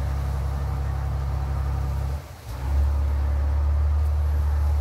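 A steady, loud low hum that dips out briefly a little past two seconds in and then comes back.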